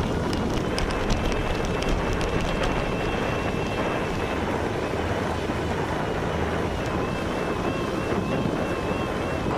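Wind buffeting the microphone over a steady rush of surf, with a faint thin wavering whine in the second half.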